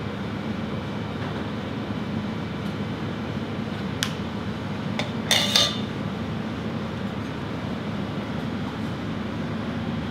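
Steady low kitchen background hum, with a sharp click about four seconds in and a short clatter of cutlery on crockery just after five seconds.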